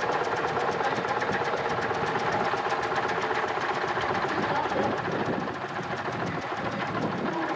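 Vintage tractor engine running with a steady, rhythmic beat, easing slightly about five seconds in.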